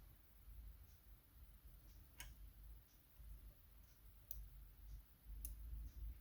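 Three faint, sharp clicks spread over a few seconds, from a lock pick working the pin stack of a euro cylinder lock.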